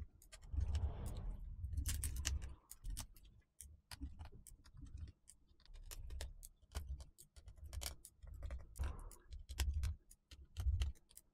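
Irregular light clicks and ticks of a 00 Phillips precision screwdriver backing out the tiny keyboard screws of a MacBook Air, with dull low handling bumps in between.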